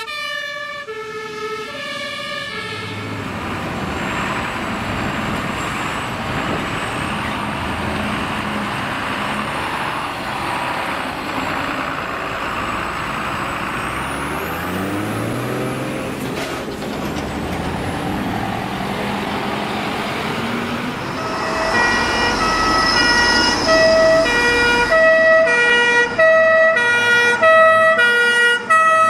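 German two-tone fire-engine siren (Martinshorn) alternating between its two pitches as a fire truck passes, fading out after about two seconds. A heavy diesel truck then drives past, its engine and tyres running with shifting engine pitch. Near the end the two-tone siren starts again, louder, on an approaching old Mercedes-Benz fire engine.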